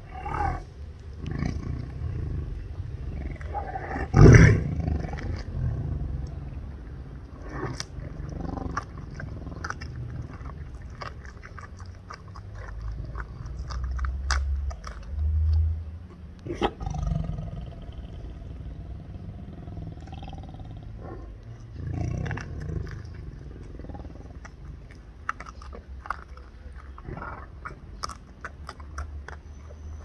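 A tiger makes low, rough roar-like calls with strained, gasping in-breaths, the loudest about four seconds in. Between the calls there are short clicks from chewing raw chicken.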